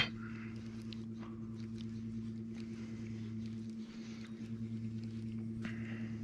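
Boat motor running at a steady low hum, holding the boat against a fast-flowing stretch of current, with a few faint ticks over it. The hum dips briefly about four seconds in.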